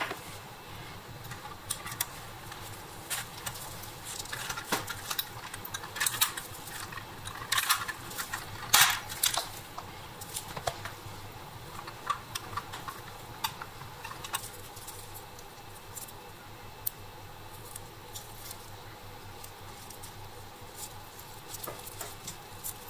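Irregular small clicks and taps of gloved hands handling hard plastic and metal toy truck parts, a cab and chassis, on a work mat. The clicks are thickest and loudest around six to nine seconds in and grow sparse later.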